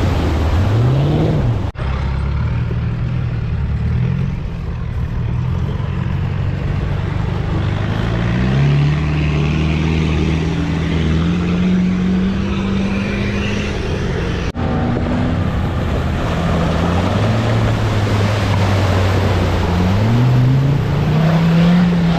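Off-road 4x4 engines revving under load, their pitch climbing and falling repeatedly as they work through a deep water crossing. The sound breaks off sharply twice, about 2 seconds in and about 15 seconds in.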